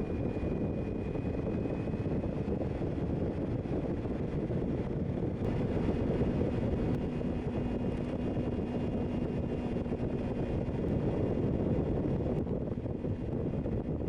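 Motorcycle running at road speed with heavy wind noise on the microphone, a steady rush that grows slightly louder about five and a half seconds in.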